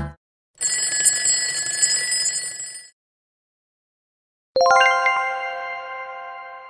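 A ringing-bell sound effect, like an alarm or telephone bell, rings for about two seconds to mark that time is up. After a short silence, a bright chime is struck once near the end and rings out slowly as the answer is revealed.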